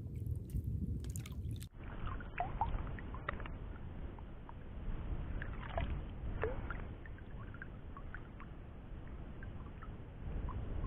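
Wind rumbling on the microphone over water lapping and sloshing around a wading angler, with scattered faint chirps and ticks. The sound breaks off abruptly about two seconds in and picks up again at an edit.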